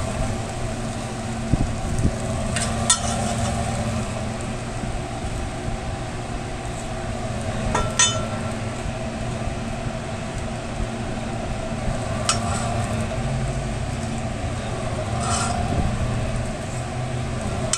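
A metal scraper scraping down a flat-top griddle, with four sharp metal clinks a few seconds apart, over a steady low mechanical hum.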